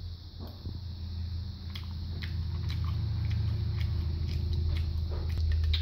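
A low steady rumble with a deep hum, growing gradually louder. Over it come scattered light clicks and mouth noises of someone eating from a can with a spoon.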